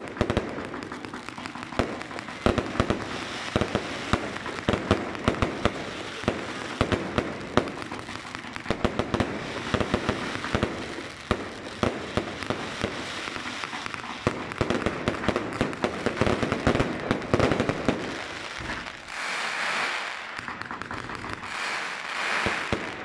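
Firework batteries firing a rapid run of shots, the launches and aerial bursts going off as a dense string of overlapping bangs. Near the end the bangs thin out and a dense crackling takes over.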